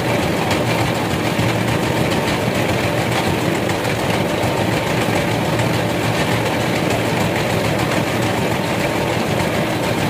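Large vertical band saw running steadily, its blade sawing through a log as it is pushed into the cut.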